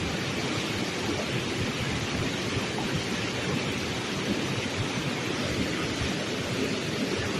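Steady rushing noise with a fluttering low rumble underneath, unbroken throughout.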